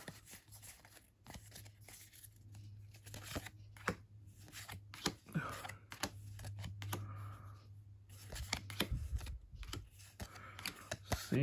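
Pokémon trading cards being handled and flipped through in the hands: faint scattered clicks and soft sliding rustles as cards are moved from the front to the back of the stack.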